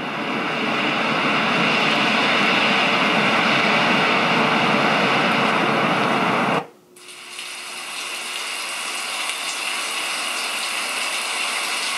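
Hatch Baby night light and sound machine playing a steady white-noise-type track from its speaker. About six and a half seconds in, the track cuts off as the next sound is selected, and a second, slightly softer steady noise fades in.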